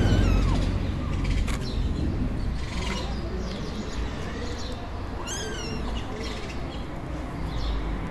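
Kitten mewing several times in short, high calls that bend in pitch, while it is held and handled for eye drops. A low rumble fades out about a second in.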